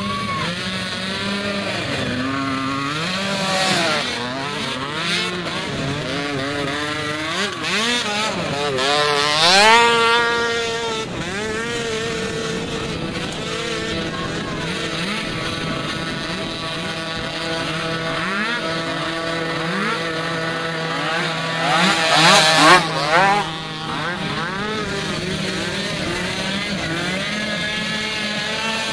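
Youth mini quad (small ATV) engines revving up and down as the quads race past, several overlapping at times. Two passes stand out as louder: one about a third of the way in and one about three-quarters in.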